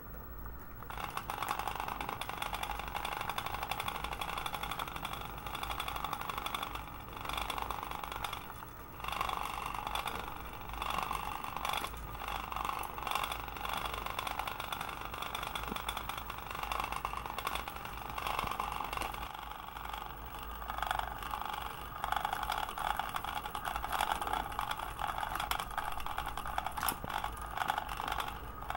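Steady buzzing of a small motor running continuously.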